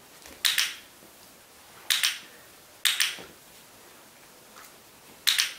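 Dog-training clicker clicked four times, each a quick, sharp double click as it is pressed and released. The clicks mark the moment the dog does the wanted behaviour.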